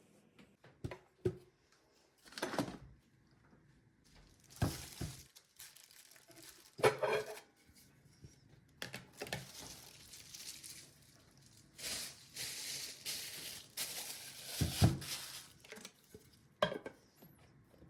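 Dishes and cutlery clinking and knocking as they are handled in a kitchen, with several spells of rushing noise lasting a second or more between the knocks.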